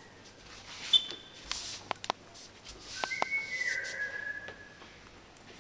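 A brief high whistle tone about a second in, then a longer whistle about three seconds in that steps down in pitch, with a few sharp clicks of Subbuteo figures being flicked against the ball.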